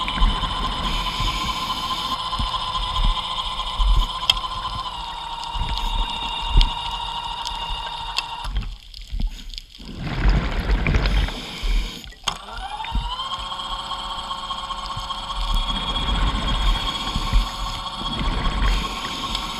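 Underwater diver-propulsion scooter's electric motor whining steadily, heard underwater. Its pitch dips slightly about five seconds in, and it cuts out a few seconds later, leaving bubbling water noise. It spins back up with a rising whine and settles to a steady run.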